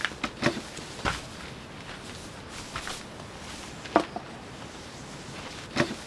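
Steady heavy rain with about five separate knocks and clicks, spaced a second or more apart, the loudest about four seconds in.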